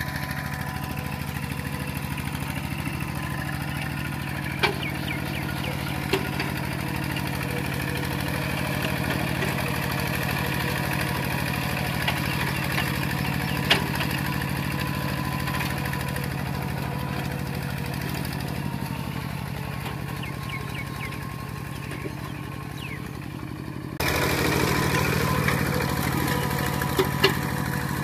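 Kubota walking tractor's single-cylinder diesel engine running steadily while the machine tills a flooded, muddy paddy, with a few sharp knocks over it. The engine gets louder about four seconds before the end.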